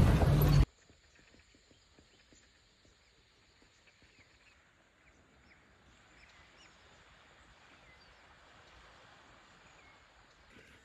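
Loud noise from a moving open buggy for a moment, cut off abruptly, then very faint scattered calls of a large flock of waterbirds on a farm dam, mostly Pacific black ducks.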